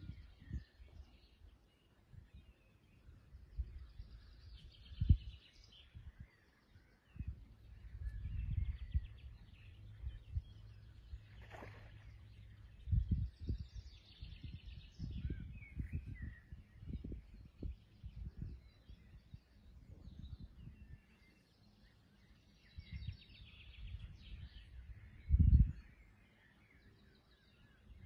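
Songbirds chirping and singing off and on, over irregular low rumbles of wind buffeting the microphone, strongest in a few gusts.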